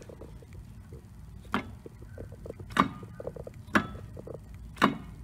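Sharp clicks, four about a second apart with fainter ticks between, as the driveshaft is worked back and forth by hand at the worn front flex disc of a 1999 Mercedes S320. The clicking comes from excessive play in the bad flex disc, which the owner blames for the click when shifting between drive and reverse.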